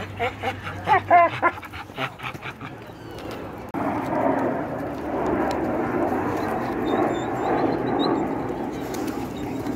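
Stray dogs whining and yipping in several short, rising-and-falling calls in the first second and a half. About four seconds in, a loud steady rustling noise starts suddenly and carries on.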